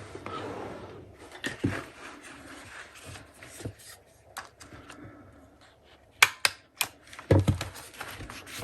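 Paper rustling as pages are handled, then a desk stapler snapping shut in three sharp clicks about six seconds in, followed by a low thump.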